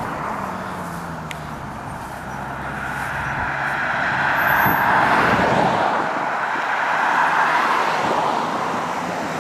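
Ferrari 458 Italia's V8 running at low revs as the car creeps past, heard over a steady hiss of road noise.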